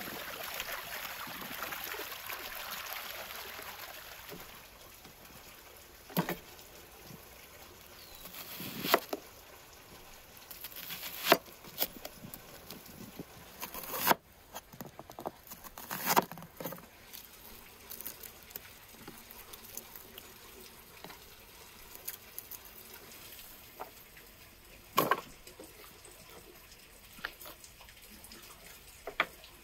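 Water gushing over hands as a red onion is rinsed, fading out after about four seconds. Then a large knife slices the onion on a wooden cutting board, with several sharp knocks of the blade on the board a few seconds apart.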